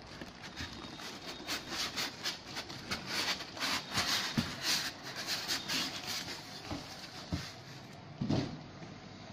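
Rustling, crackling and scraping of packaging as a boxed inverter in polystyrene end caps and a plastic cover is worked out of its cardboard carton, then a dull thump about eight seconds in as it is set down.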